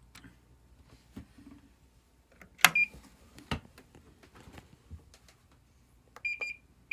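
Control panel of an IH induction cooktop beeping as it is switched on and set: a short high beep about three seconds in, then a quick run of beeps near the end. A sharp clack just before the first beep and a knock a moment later, with light handling clicks between.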